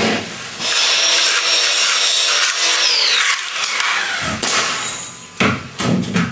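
A saw cutting through timber for about three seconds. Then, near the end, a few sharp separate shots from a strip-fed framing nailer driving nails into timber studs.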